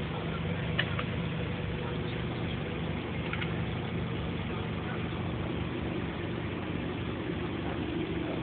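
Steady low mechanical hum, even throughout, with a couple of faint ticks about a second in and about three seconds in.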